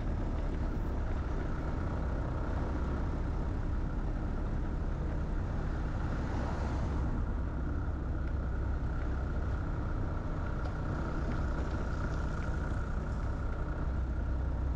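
Steady low rumble and road noise of a vehicle driving along at an even pace.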